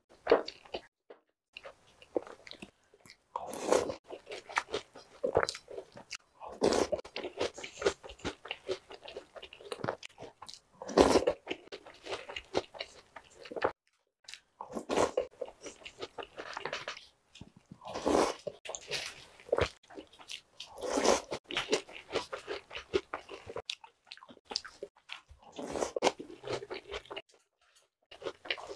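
Close-miked crunchy chewing of Jolly Pong, a sweet puffed-wheat snack, eaten by the spoonful out of milk: clusters of crackling bites with short pauses between mouthfuls.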